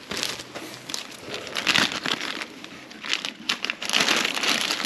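Thin plastic bag crinkling as hands wrap it around a wiring connector, in irregular bursts, loudest about two seconds in and again near the end.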